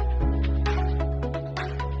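Background music: sustained synth chords over a deep bass, with a steady beat of about two strokes a second.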